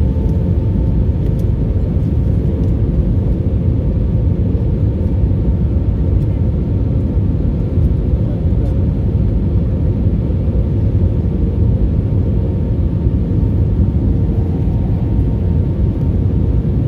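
Steady low rumble of jet engines and airflow heard inside an airliner's cabin during descent, with a steady mid-pitched hum running through it.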